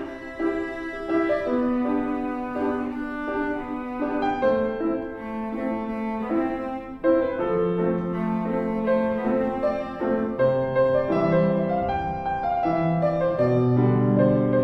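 Cello and piano playing an instrumental arrangement, held bowed notes over piano; lower cello notes come in about halfway through.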